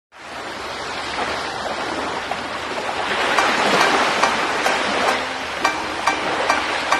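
Opening of a dance music track: a rush of noise that swells and then eases. A light clicking beat comes in about three seconds in, and short pitched notes join near the end.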